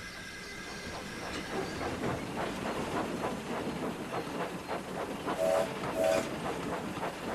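Steam locomotive chuffing in a steady beat of about three exhaust beats a second over a hiss of steam, with two short whistle toots about five and a half and six seconds in.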